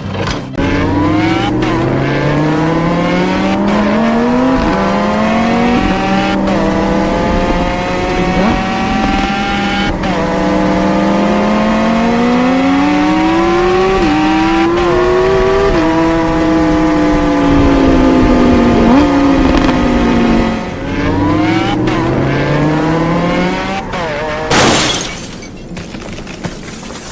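Vehicle engine sound effects revving up and down repeatedly, the pitch climbing and falling over a few seconds at a time, with a short loud burst of noise near the end.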